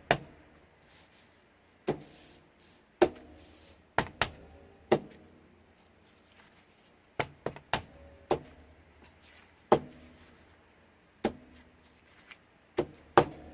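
Ink stamping on a craft table: a dozen or so short, sharp taps and knocks at irregular intervals as a stamp is tapped on an ink pad and pressed down onto paper.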